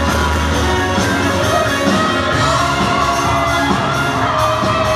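Live rock band playing loud, with electric guitars and drums, and the crowd shouting and whooping over the music.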